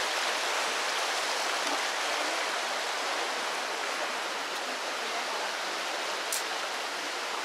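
Waterfall and creek water rushing in a steady, even roar of white water.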